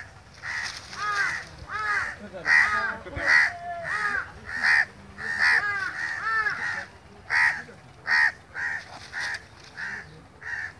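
House crows cawing harshly and repeatedly, about two calls a second, around a fallen crow: the noisy gathering, called a crow "meeting", that forms over a dead or injured crow.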